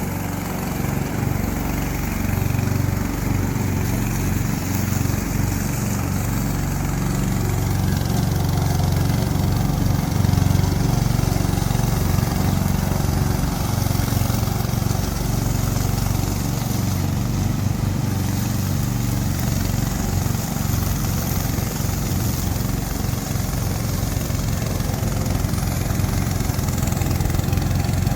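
Remote-controlled slope mower running, its engine holding a steady note.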